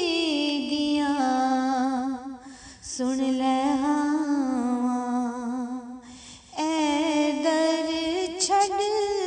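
A woman singing a slow melody, holding long notes with a wavering vibrato in three drawn-out phrases with short breaks between them.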